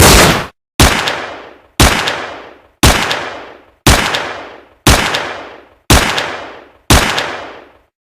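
Gunshot sound effect: seven single shots about a second apart, each with a decaying echo tail, after the last of a faster string of shots fades out.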